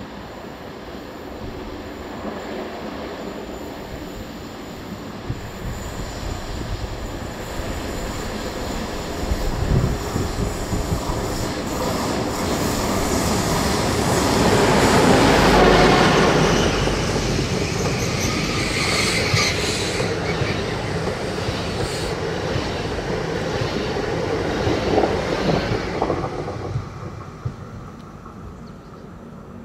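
An ASEA-design electric locomotive hauling a passenger train approaches and passes close by. The rumble of the train builds to its loudest as the locomotive goes past about halfway through, then the coaches roll by with a brief high wheel squeal on the curve and a few sharp rail clicks, and the sound fades away near the end.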